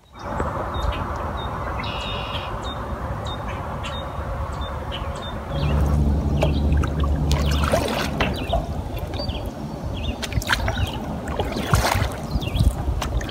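Canoe paddling: a wooden paddle stroking through the water, with water trickling and splashing off the blade. Sharp clicks and knocks come through more often in the second half, and a low rumble runs for a couple of seconds about six seconds in.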